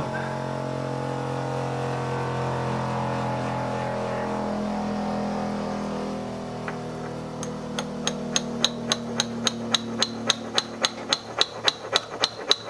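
Small hammer tapping a tight metal spoke into a model wheel's hub: light, quick, ringing metallic taps about three a second, starting about seven seconds in. Before them, a steady hum fades out.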